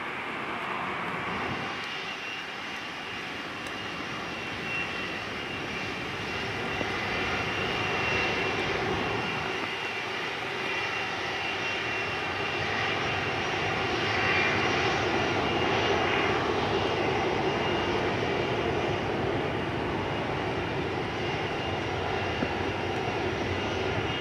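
Boeing 747-400's four jet engines running at taxi power, a steady high whine over a broad rushing roar that swells a little partway through as the jumbo rolls past close by.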